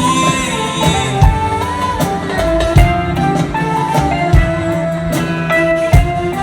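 Live band playing an instrumental passage of an Egyptian pop song: a lead melody over bass and drums, with a heavy drum hit about every second and a half.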